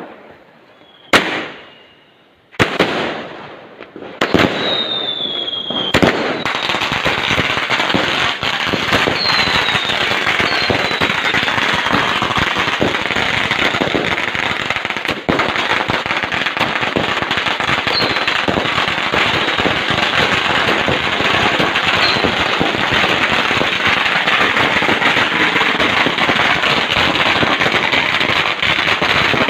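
Fireworks going off: four loud separate bangs in the first six seconds, one followed by a short falling whistle, then a dense, unbroken crackle of many small explosions with a few brief whistles on top.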